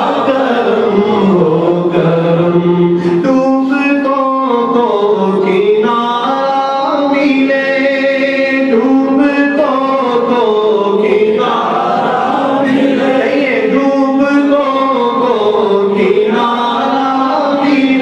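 A man chanting an Urdu devotional kalaam (a supplication in naat style) in long, slowly bending held notes.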